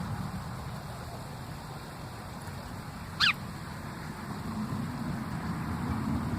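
A single short bird chirp, a quick sweep upward in pitch, about three seconds in, over a steady low rumble.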